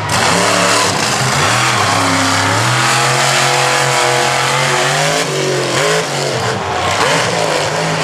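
Monster truck's supercharged V8 engine revving hard. Its pitch rises and falls, holds high for a couple of seconds in the middle, drops about five seconds in, then climbs again.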